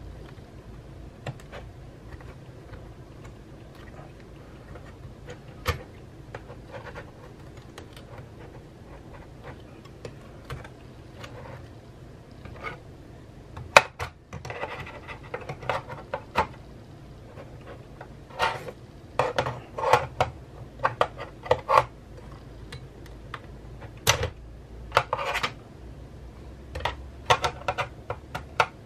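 Metal and plastic parts clicking, knocking and scraping as they are fitted by hand back into a Mac mini's aluminium case, in scattered small clicks. A sharp knock comes about halfway through, and the clatter gets busier after it.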